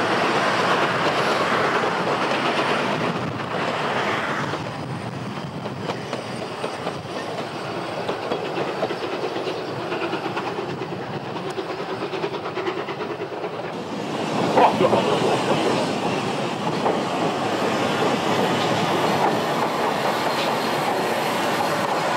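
Narrow-gauge steam train rolling past, its coaches' wheels clattering over the rail joints, fading as the last coach goes by. About 14 seconds in, it turns abruptly louder again as the locomotive and coaches pass close, with a short sharp clank or squeal just after.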